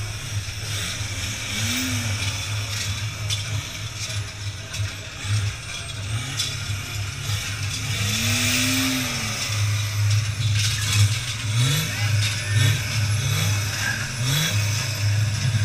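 Krampus and Perchten bells clanging in a dense din over a deep, steady rumble from a procession float. A low tone rises and falls twice.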